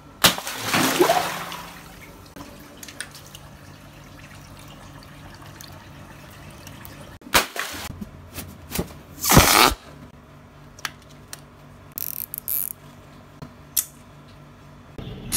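Water sounds from garden-hose water balloons being filled and handled: swishing and sloshing water, with a few sharp clicks between.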